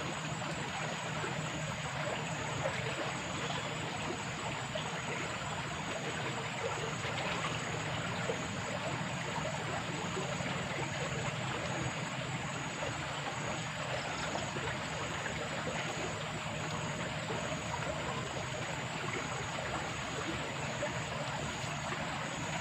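Steady rush of flowing water, even and unbroken, with a thin high-pitched tone held above it.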